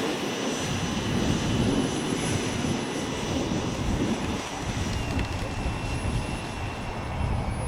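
Small RC model turbine jet engine whining, with wind buffeting the microphone. The whine drops in pitch about five seconds in.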